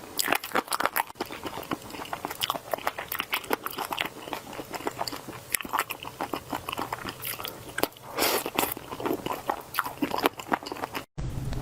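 Close-miked crunching and chewing of crisp food, with many rapid, irregular crackles of biting and mastication. The sound breaks off abruptly near the end.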